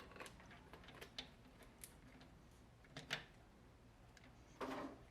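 Quiet, scattered light clicks and taps of small metal engine parts being handled and fitted during valvetrain assembly. The sharpest click comes about three seconds in, and a short louder rustle comes near the end.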